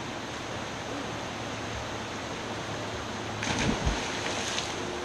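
A person jumping from a rock into a creek pool, hitting the water with a splash about three and a half seconds in. It sounds over a steady background hiss.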